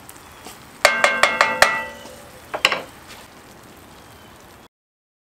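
A wooden spoon knocked five times in quick succession against the rim of a cast iron pot, each knock ringing, then two more knocks about a second later, over the faint sizzle of beans and hot dogs cooking in the pot.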